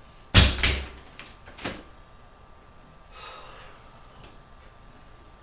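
A loud bang, then a second one and three lighter knocks within about a second and a half, like a door banging. A faint exhale follows near the middle.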